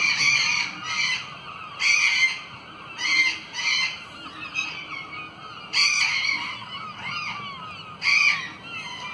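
Loud short animal calls, repeated about five times a second or two apart, over a bed of faint chirping.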